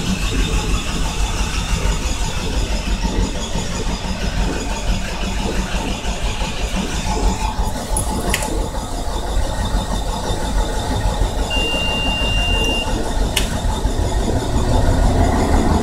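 Truck's starter cranking the engine over continuously without it catching, running on its own with no key in the ignition: a starting-circuit malfunction. A couple of sharp clicks and a steady high beep lasting about a second come in over the cranking in the second half.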